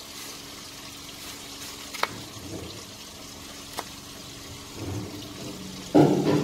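Kitchen knife cutting peeled tomatoes on a plastic cutting board: sharp taps of the blade on the board about two and four seconds in, and a louder knock near the end, over a steady low hiss.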